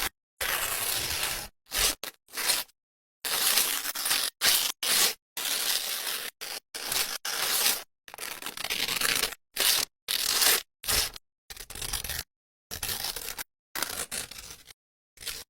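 A rapid string of short, crackly noise bursts, edited together as sound-effect clips, each cut off abruptly by dead silence.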